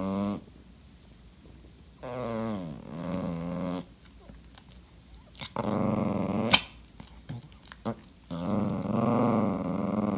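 Dachshund making long, drawn-out grumbling growls, each a second or two long with short pauses between, the typical attention-seeking grumble of a clingy dog being ignored. A single sharp click comes during the third grumble.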